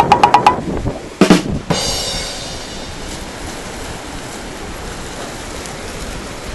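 A quick drum roll of sharp hits with a cymbal-like crash about a second in, its ring fading over the next two seconds, then steady surf and wind noise.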